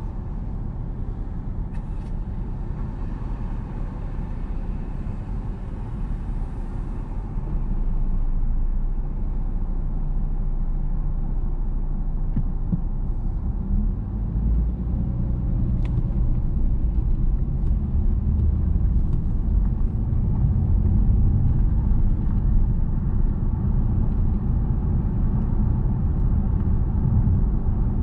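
Low rumble of a car's engine and tyres, quieter at first and growing louder and heavier partway through as the car pulls away and gathers speed.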